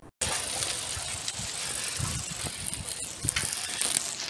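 Small bicycle being ridden, its freewheel ticking and its parts rattling over a steady hiss.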